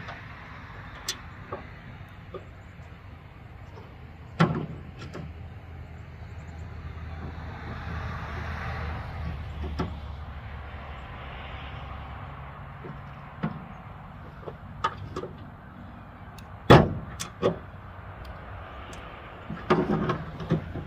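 Scattered clicks and knocks of chainsaw parts and tools being handled against a truck tailgate during chain fitting and greasing. The loudest is a sharp knock about two-thirds of the way through, over a low rumble that swells and fades in the middle.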